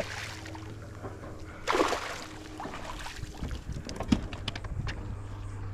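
Water splashing beside a kayak as a fish thrashes at the surface, with one loud splash about two seconds in, then a few light knocks and clicks.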